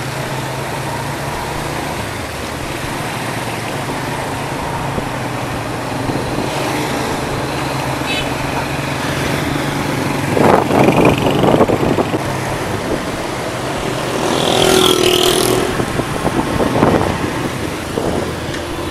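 Motorcycle ride through town traffic: the engine runs steadily under wind and road noise, and passing traffic grows louder about ten seconds in and again around fifteen seconds in.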